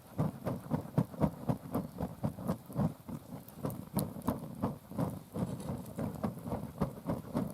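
Uchiwa paper hand fan being flapped quickly over bonfire ashes, about three strokes a second, each stroke a soft puff of air. The fanning stops abruptly near the end.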